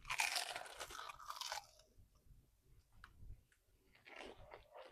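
A bite into a crispy toasted sourdough sandwich: a loud crunch lasting about a second and a half, then quieter chewing.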